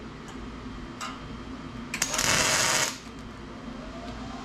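A welder tack-welds a stainless-steel exhaust tailpipe: one burst of arc noise about a second long, starting about two seconds in.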